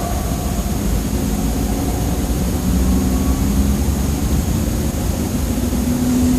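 A steady, low engine-like drone and rumble from the sky, with a faint hum that wavers slightly in pitch; its source is unknown.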